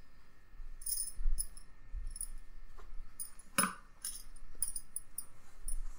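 Cotton cloth rubbing over the painted metal head and bed of an Anand treadle sewing machine in repeated short, scratchy wiping strokes, with one light knock about three and a half seconds in.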